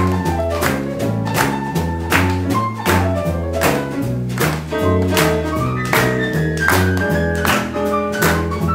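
Live jazz combo playing an instrumental chorus: upright bass stepping through a new low note about twice a second, drum kit keeping time, and piano playing a melodic line above.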